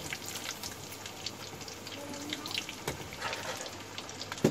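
Breaded chicken pieces deep-frying in hot oil in a kadai: a steady sizzle with many small pops and crackles. A single sharp knock near the end.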